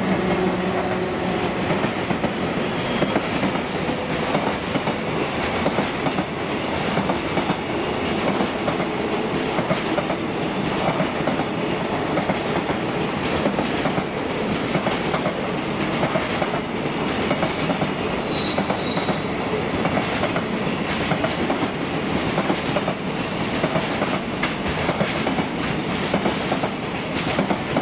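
Freight train passing: a steady rumble of wheels on rail with a rapid clickety-clack of wagon wheels over the rail joints. A low steady tone fades out about a second in.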